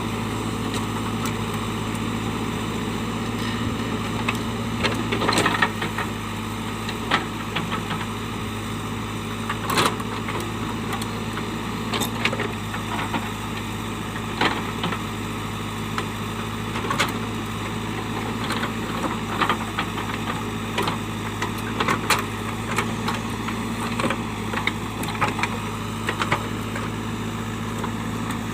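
JCB 3DX backhoe loader's four-cylinder diesel engine running steadily, with irregular sharp knocks and clanks every second or two.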